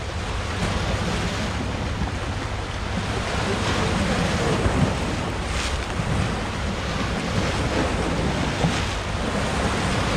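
Sea surf washing and breaking against a rocky shore, with wind buffeting the microphone in a heavy, uneven low rumble.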